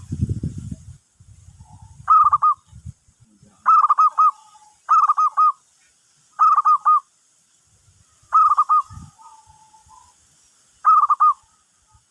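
Zebra dove (perkutut) cooing: six short phrases of quick, bouncing coo notes spaced a second or two apart, with fainter, lower drawn-out notes between some of them. A low rumble sits under the first few seconds.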